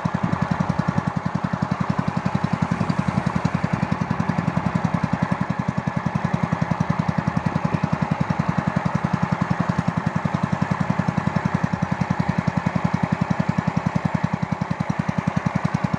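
Honda GX200 single-cylinder four-stroke engine running steadily, its exhaust beats coming as a fast, even pulse.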